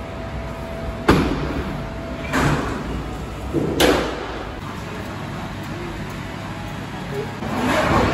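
Bowling alley noise: a steady background din broken by three sharp, echoing knocks about a second and a half apart, then a longer swelling rumble near the end.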